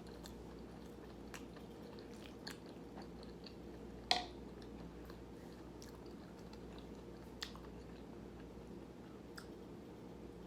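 A person chewing food, with soft scattered mouth clicks and one sharper click about four seconds in.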